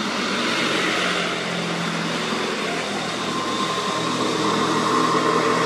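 A loaded Hino dump truck passing close by, its diesel engine and tyres making a steady rushing noise. About three seconds in a steady whine joins and the sound slowly grows as the next heavy truck approaches.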